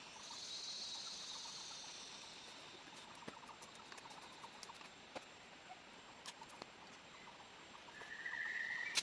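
Faint outdoor background with scattered small clicks and taps. A high, thin buzz lasts about two seconds at the start, and a short high-pitched buzz comes near the end.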